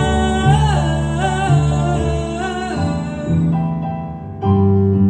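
A solo singer holds a long note with vibrato over piano accompaniment. The voice drops away about three seconds in, leaving the piano, which strikes a louder new chord near the end.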